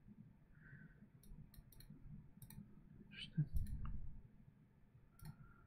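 Computer mouse clicking several times, sharp separate clicks spread across a few seconds, with a brief faint low mumble about three and a half seconds in.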